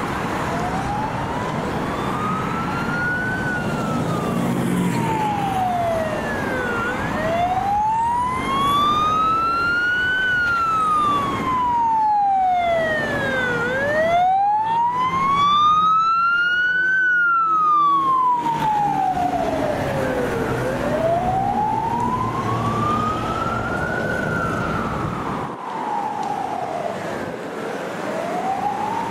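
Fire truck's siren on a slow wail, rising and falling about every seven seconds, over the low rumble of traffic and truck engines. It is loudest about halfway through, as the truck passes close by.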